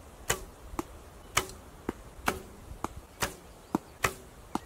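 Archery bow shooting: a quick series of sharp snaps and thuds from bowstring releases and arrows striking the target, about two a second.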